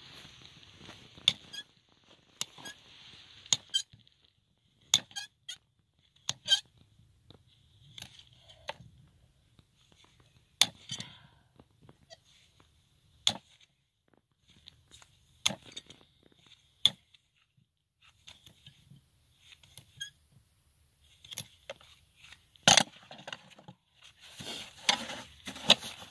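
Hoof nippers cutting through a horse's hoof wall in a barefoot trim: a series of sharp, crisp snaps, one every second or few, with the loudest snap near the end.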